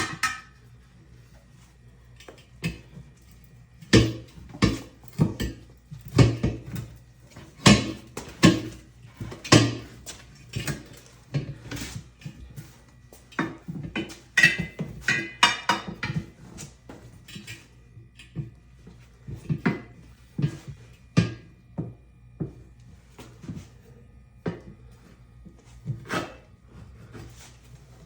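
Irregular metal clanks and knocks of a tire-mounting bar working against the aluminium wheel and the manual tire changer as a go-kart tire's bead is worked onto the rim a bite at a time. The knocks come in bursts, with short pauses between.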